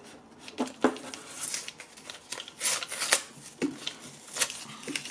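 A plastic-and-cardboard microSD card retail pack being torn and peeled open by hand: irregular crinkling with sharp snaps and clicks, the loudest about three seconds in.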